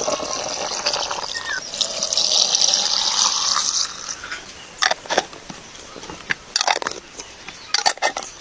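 Liquid poured from a jug into a large glass jar packed with cabbage and beetroot, a steady splashing pour that stops about four seconds in. Several sharp clicks and knocks follow as the jar's metal screw lid is handled.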